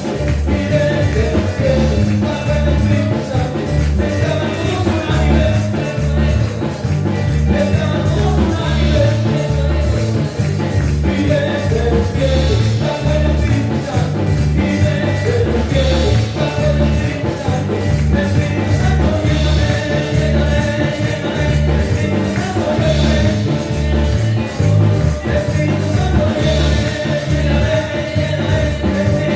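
Upbeat band music with drums and bass keeping a steady, driving beat.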